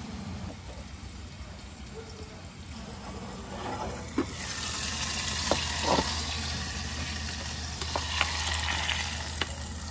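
Bacon-wrapped lake trout sizzling in a small saucepan on a propane camp stove. The sizzle swells loudly about four seconds in as the lid comes off, with a few sharp clinks of the lid and utensils.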